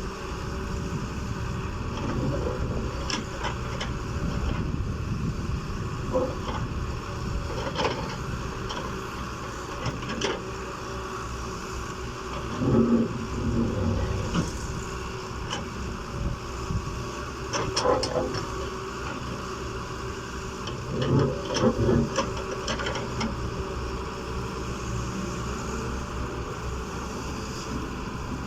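Hydraulic excavator at work: its diesel engine runs steadily, broken by scattered knocks and several louder clattering bursts from the digging and loading.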